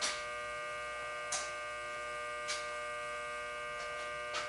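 Steady electrical hum of idling machine-shop equipment, with a sharp tick about every second or so, four in all.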